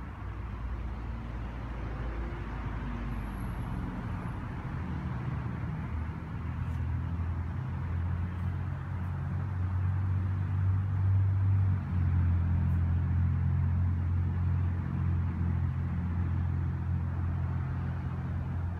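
A motor vehicle's engine running, a low steady hum that grows louder about halfway through, over a background of traffic noise.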